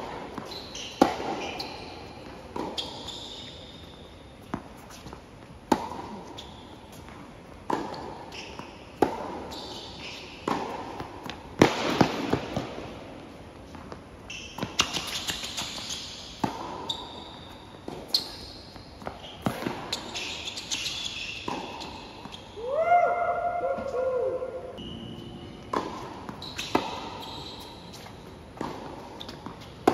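Tennis ball being hit with rackets and bouncing on a hard court during a rally: sharp pops every second or two.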